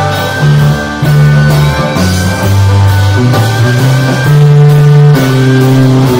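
Live band music: an instrumental passage with held bass notes moving from one pitch to the next under a steady drum beat.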